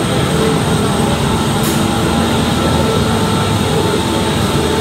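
Disney Skyliner gondola station machinery running: a steady mechanical rumble as the cabins travel through the station, with a brief high click about a second and a half in.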